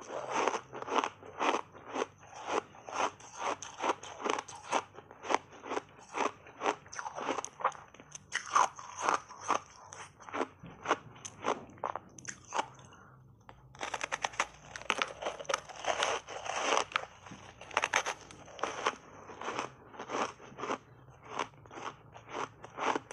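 Close-miked biting and chewing of a frozen buckwheat-coated ice bar: a steady run of crisp crunches, about two a second, with a short lull about halfway through.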